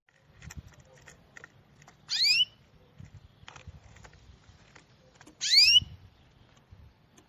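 A bird giving two loud, rising, squealing calls about three seconds apart, each sweeping sharply upward in pitch, with faint short chips in between.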